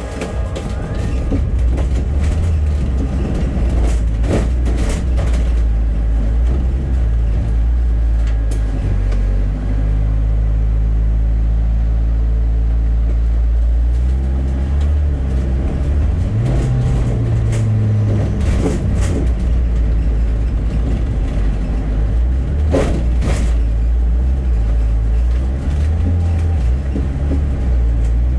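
Bus engine running under way, its low drone holding steady and then changing pitch about halfway through, with occasional knocks and rattles.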